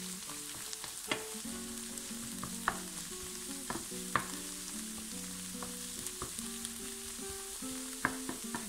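Wooden spatula stir-frying spinach, onion and garlic in a nonstick frying pan: sizzling, with the spatula scraping and tapping sharply against the pan several times. Soft background music with a plucked melody plays underneath.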